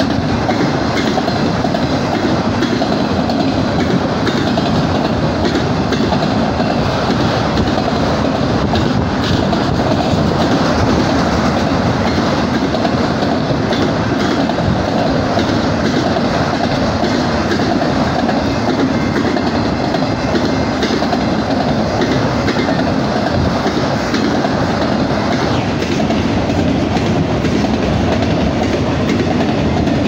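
Freight train of autorack cars rolling past at close range: a steady, loud rumble of steel wheels on the rails.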